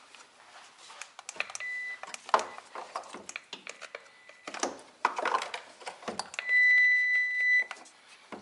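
Electrical circuit tester beeping on wiring being probed for a connection: a faint short beep about two seconds in and a loud steady high beep lasting about a second near the end. Clicks and rustling of the probes and wires being handled run throughout.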